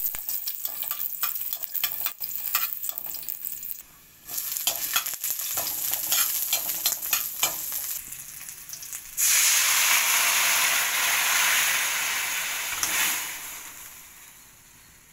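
Chopped garlic and onion sizzling in oil in a metal wok, with a metal spatula scraping and clicking against the pan. About nine seconds in, a much louder hiss starts suddenly as canned sardines and their liquid go into the hot oil, then dies down over the last few seconds.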